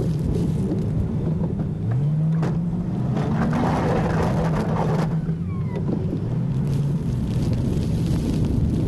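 A Chevy 2500 pickup's engine running steadily, its pitch rising about two seconds in and then holding, with a rushing noise swelling from about three to five seconds in.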